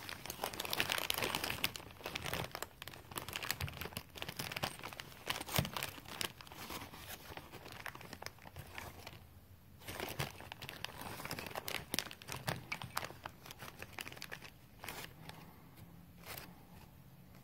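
Cloth rustling and brushing right against the microphone: a sweatshirt sleeve rubbing as the arm moves, with scattered small clicks from hands working on a distributor's advance springs.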